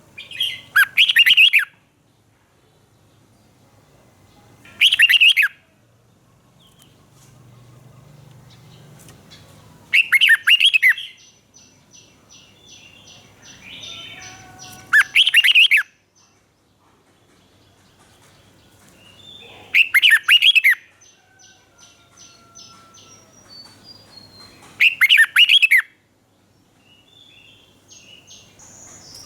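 Red-whiskered bulbul singing loud, short warbled phrases about every five seconds. Fainter, high, rapid chirp series come between the phrases.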